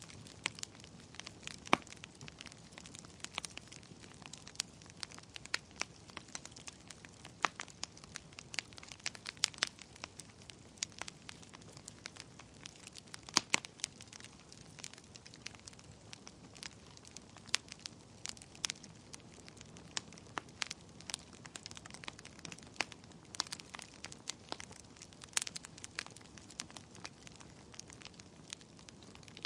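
Wood fire burning in a fireplace: irregular sharp crackles and pops over a soft steady hiss of flame.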